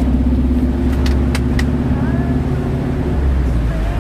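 Car cabin noise while driving in heavy rain: a steady low rumble of engine and tyres on a wet road, with a few sharp clicks about a second in.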